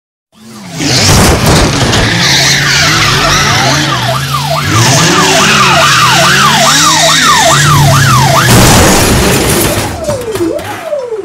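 Car-chase sound effects: car engines running and tyres skidding, with a police siren yelping in rapid rising-and-falling sweeps, about two a second. Near the end a crash with scattering debris, after which the siren slows to a longer, lower wail.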